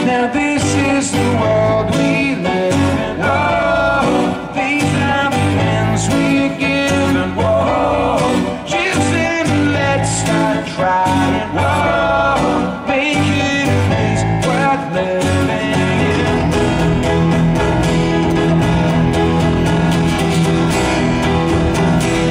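Live rock band with two acoustic guitars and keyboards, a male lead voice singing over the first fifteen seconds or so; the singing then drops out and the band plays on.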